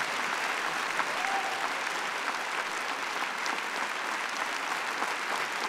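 Large concert hall audience applauding steadily.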